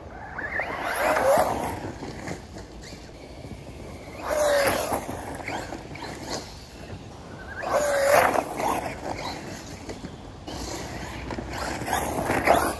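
FTX DR8 radio-controlled desert racer driving past again and again, its electric motor whining as it comes and goes with tyres scrabbling over dirt. It passes four times, about every four seconds.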